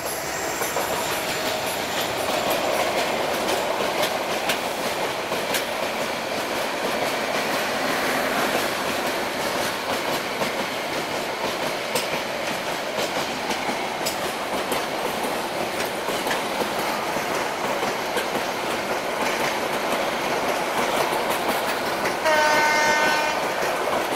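Meter-gauge passenger train passing at speed: the diesel locomotive goes by at the start, then a long rake of coaches rolls past with a steady rumble and repeated clicks of wheels over rail joints. A horn sounds briefly near the end.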